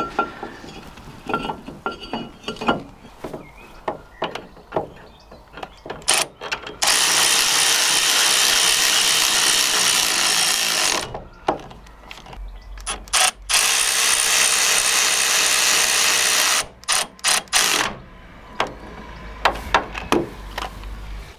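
Aerosol brake cleaner sprayed onto a new brake disc to wash off the factory coating: two long hissing bursts in the middle, about four and three seconds long, with a few short spurts between them. Scattered clicks and knocks come before and after the bursts.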